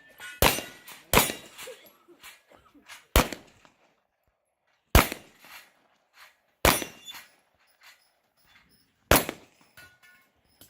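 Pistol shots fired one at a time during a match stage: six sharp reports at uneven gaps of about one to two and a half seconds, the first two close together, with fainter clicks and knocks between them.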